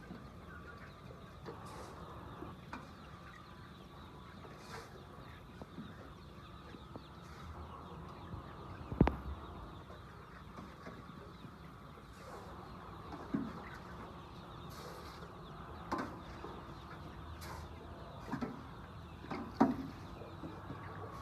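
Chickens clucking, with scattered short calls over a steady low background, and one sharp knock about nine seconds in.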